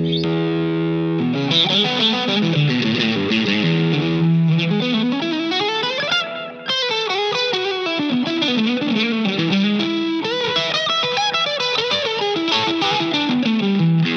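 Distorted electric guitar from a Fender Stratocaster through an open-back amp: a held chord, then a winding single-note solo with slides and bends. It is picked up by a dynamic mic on the front of the speaker together with a condenser mic behind the open back of the cabinet.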